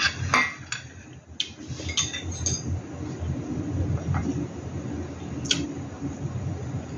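A metal fork and a mug clinking against a ceramic plate and a glass tabletop several times, sharp single clicks, while soft cubed mango is chewed.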